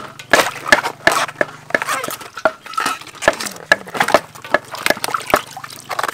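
Water sloshing and dripping in a large metal basin as banana blossoms are handled and their outer bracts peeled back, with many short clicks and splashes throughout.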